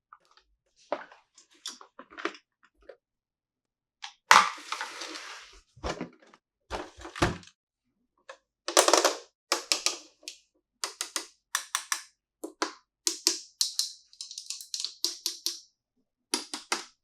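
Small plastic toy-kitchen pieces being handled and set down: an uneven run of sharp clicks, taps and knocks, often in quick clusters, with a louder burst of rustling noise just after four seconds in.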